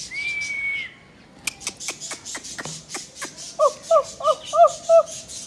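Birds calling in the open. A single high whistle is held for about a second at the start. A quick run of sharp clicks follows, and about a second before the end come five short, harsh crow caws in quick succession, the loudest sounds here.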